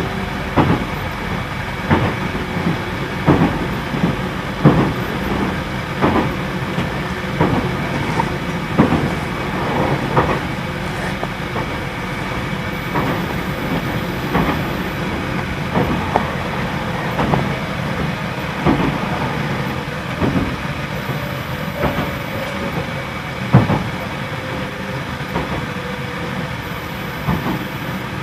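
Running sound inside a JR Central 313 series electric train car: the wheels knock over track joints at irregular intervals above a steady running noise, with the air conditioning loud.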